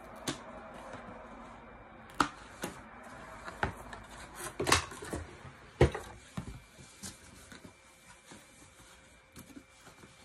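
A packaging box being opened and handled by hand: a string of sharp clicks, taps and rustles from the box and its flaps, loudest around the middle and thinning out toward the end.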